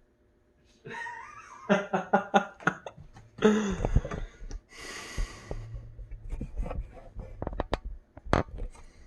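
A person's voice making sounds without clear words, then a hissing breath out, followed by a few light knocks and clicks.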